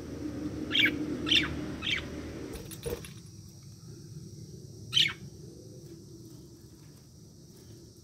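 Budgerigars giving a few short, separate chirps. Under the first few seconds there is a low rumble, which stops with a knock about three seconds in.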